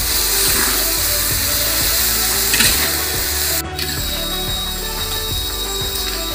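A metal spatula scraping and tossing vegetables and fried tempeh in a steel wok in quick repeated strokes, over the steady hiss of the stir-fry sizzling in hot oil. The hiss cuts out for an instant a little past halfway.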